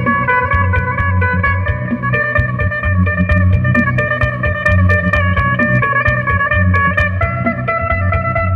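Electric phin, the amplified Isan lute, plucked in a lai melody over steady ringing drone notes, with a steady low pulse underneath.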